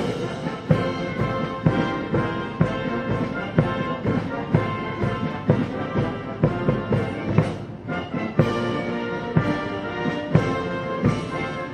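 A military band playing live: brass carrying the tune over drums that strike a steady beat.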